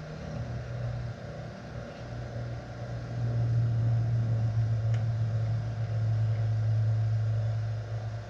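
Electric wire-stripping machine's motor running with a steady low hum. It grows louder about three seconds in and cuts off near the end.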